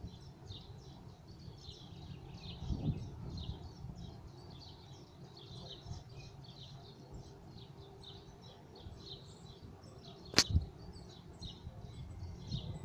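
Small birds chirping over and over, with a low rumble underneath and one sharp click about ten seconds in.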